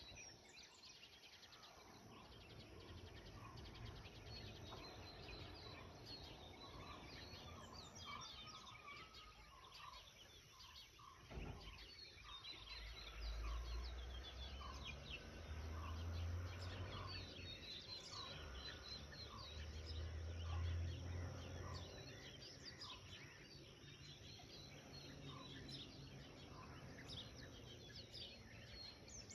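Birds calling and chirping, faint, with a run of repeated calls about a second apart through the middle. A single click comes near the middle, and a low rumble sits under the second half.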